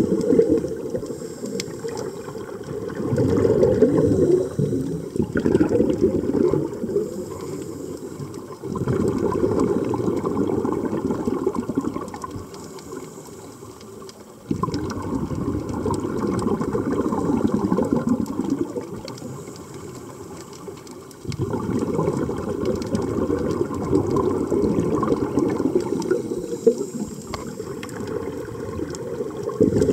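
Scuba diver breathing through a regulator, heard underwater: a low, muffled, bubbly rumble of exhaled air that swells and fades every few seconds.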